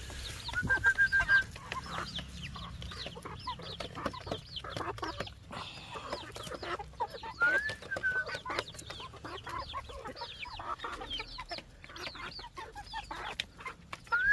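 Chickens clucking and chirping: many short calls throughout, with a longer rising, held call about half a second in and again about seven and a half seconds in.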